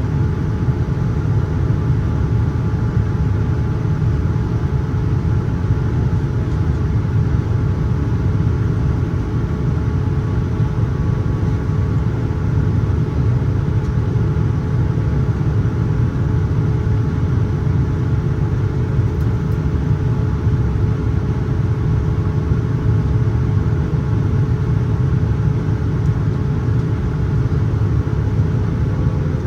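Steady cabin drone inside a Boeing 787-9 in flight: jet engine and airflow noise, deepest and loudest in the low range, with a constant hum tone above it and no change throughout.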